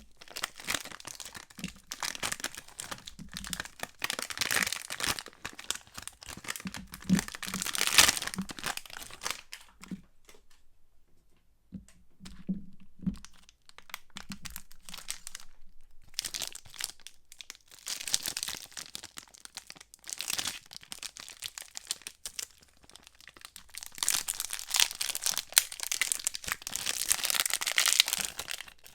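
Soap bar wrappers being crinkled and torn open by hand: bursts of crackly rustling and tearing, with short pauses between packets.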